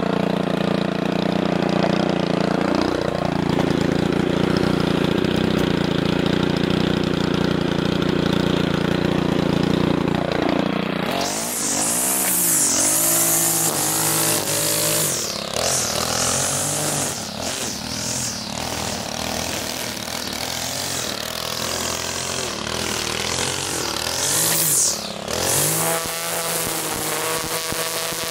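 A small engine runs at a steady speed; then, from about 11 seconds in, a gas string trimmer (weed eater) edging grass along a concrete driveway, its engine revving up and down repeatedly as the throttle is squeezed and released, with the whine of the cutting line.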